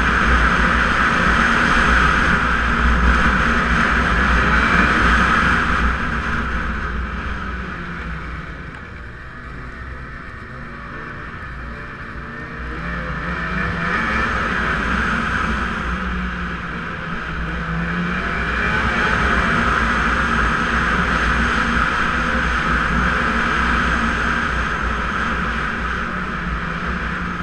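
Snowmobile engine running on the move. It eases off about a quarter of the way in, then picks up again and holds steady.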